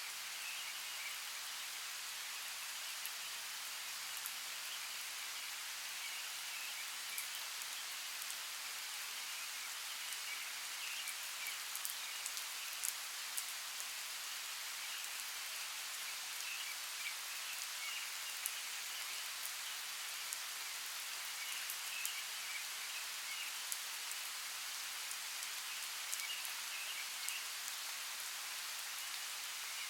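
Steady rainfall in a rainforest, with scattered individual drops ticking close by and a faint high-pitched chirping in the background.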